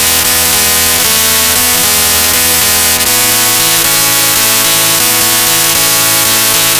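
Very loud, heavily distorted electronic music: layered sustained tones that change pitch roughly once a second over a constant harsh hiss.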